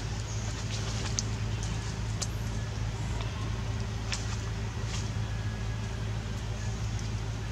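Steady low engine-like hum, with a few faint short clicks and a brief high chirp about two seconds in.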